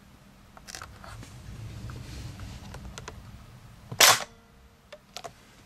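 S&T Tavor TAR-21 airsoft electric gun cycling once: a single loud, sharp snap about four seconds in as its spring-driven piston is released. A few light handling clicks come before it and two after.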